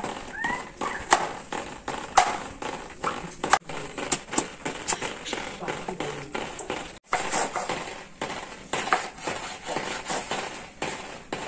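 Kitchen knife chopping vegetables on a plastic cutting board: irregular taps and knocks of the blade striking the board as okra, onion and tomato are sliced.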